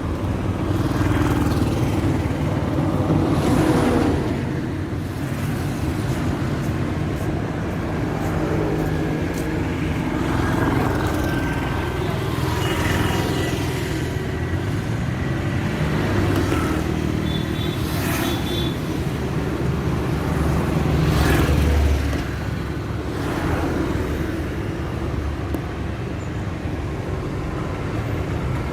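Highway traffic: a steady rumble of engines with vehicles passing one after another, several louder passes swelling and fading, and a few short tones that sound like horns.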